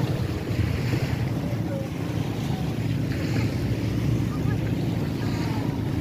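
Steady wind noise buffeting the microphone, over small waves washing onto a sand beach.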